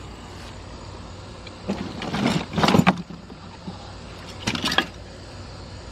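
Metal pinball machine parts rattling and clattering as they are handled, in two short bursts: a longer one about two seconds in and a shorter one near the end.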